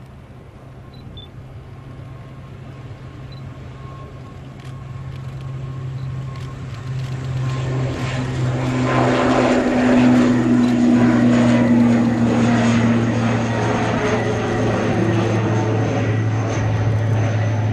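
Airbus C-295MW military transport's two Pratt & Whitney PW127G turboprop engines at takeoff power during the takeoff roll, liftoff and climb-out: a steady low propeller drone that grows louder until about ten seconds in, then holds and drops slightly in pitch as the aircraft passes and climbs away.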